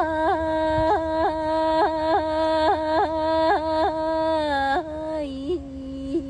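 A singing voice holding a long wordless note, broken about three times a second by quick upward yodel-like flicks in pitch, sliding down to a lower held note near the end.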